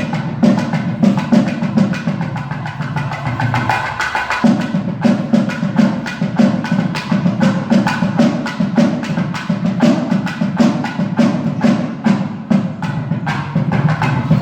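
Percussion music: fast, even drum strikes, several a second, over pitched tones.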